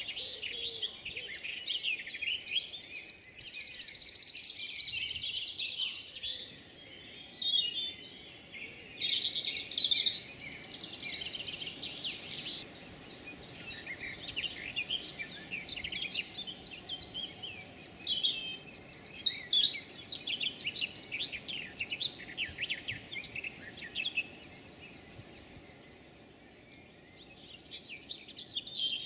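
Woodland dawn chorus: many songbirds singing at once in dense, overlapping songs and calls, easing off briefly near the end before picking up again.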